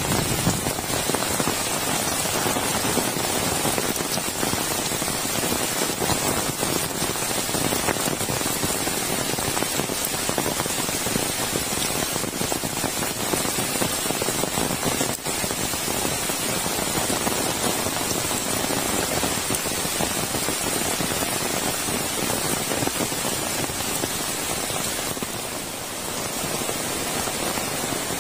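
Heavy rain falling steadily on leaves, wet ground and roofs, an even hiss of downpour.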